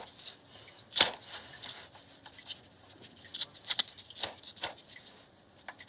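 Water pump of a Mercedes M112 V6 being turned by hand at its pulley hub, with the belt off: its bearing gives a scattering of irregular clicks and scrapes, loudest about a second in and again in a cluster near the end. The bearing is worn out, which the owner puts down to the pump pulley having worked loose.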